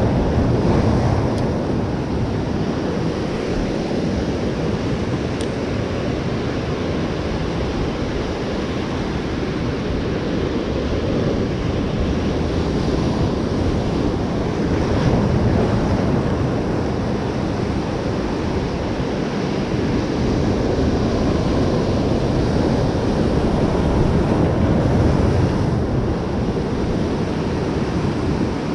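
Ocean surf washing and breaking over a lava-rock shoreline, a steady rush that swells louder now and then as waves break, with wind buffeting the microphone.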